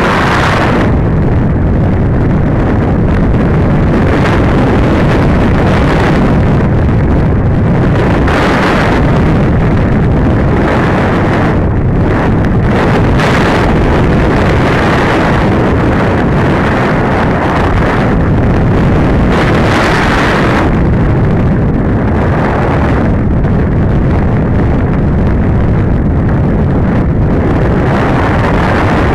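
Loud, steady rush of wind buffeting the microphone of an onboard camera on an RC glider in flight. The hiss swells brighter several times.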